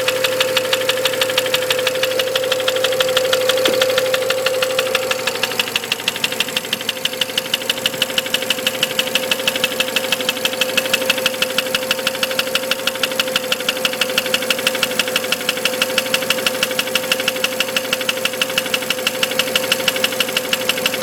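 BMW N54 twin-turbo straight-six engine running with a regular knock, an even train of sharp ticks several times a second over a steady hum: the engine knock the owner is showing.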